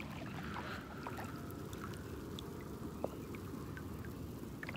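Steady low rumble of a boat under way on open water, with a few faint clicks.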